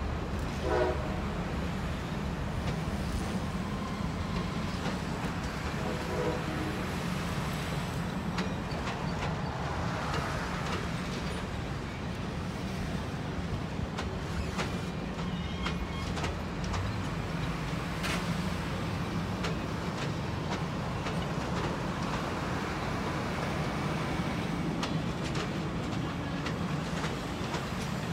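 Union Pacific heritage passenger cars rolling past on the rails with a steady rumble. Two short high squeaks come about a second in and again about six seconds in.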